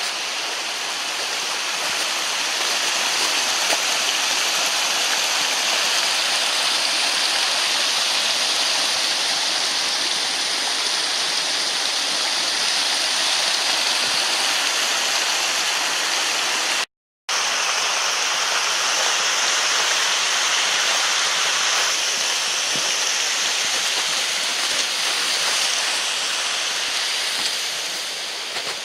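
Steady, loud rush of running water from a waterfall. It cuts out for a split second about seventeen seconds in, then carries on unchanged.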